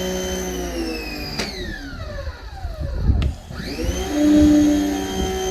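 Giraffe Tools Grandfalls electric pressure washer's motor and pump running steadily, then winding down in pitch almost to a stop and spinning back up to full speed, the run-down and restart of its auto-stop as the spray gun trigger is let go and squeezed again. Two sharp clicks come during the wind-down, and a loud low hum comes as it speeds back up.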